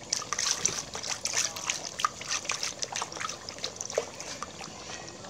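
Rice wine poured from a container into a pot of catfish curry broth, trickling and splashing irregularly into the liquid.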